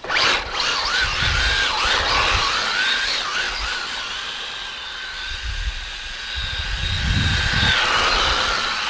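Electric RC car's motor and drivetrain whining, the pitch rising and falling as it speeds up and slows. Low rumbles come in around the middle and again near the end.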